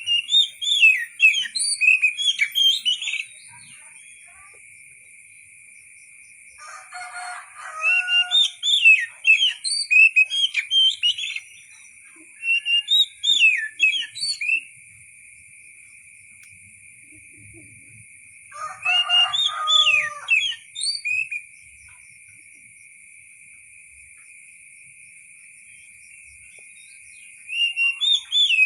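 Oriental magpie-robin (kacer) singing in bouts of quick, varied whistled notes, some sliding in pitch, with pauses of a few seconds between bouts. It starts right away, sings again about seven, twelve and nineteen seconds in, and starts once more near the end.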